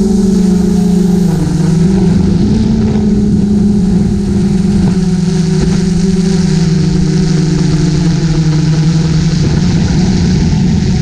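GoPro Karma quadcopter's motors and propellers humming loudly and steadily in flight. The pitch dips slightly about a second and a half in, then drifts as the rotor speeds adjust.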